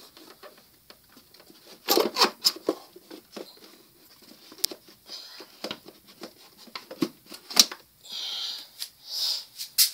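Hands handling parts in a car's engine bay: scattered clicks and knocks of plastic and metal, with a cluster of knocks about two seconds in and a few short hissy rustles near the end.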